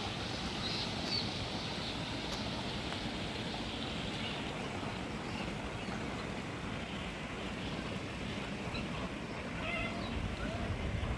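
Faint, scattered calls of caged birds over a steady background rumble of outdoor ambience, with a short cluster of calls near the end.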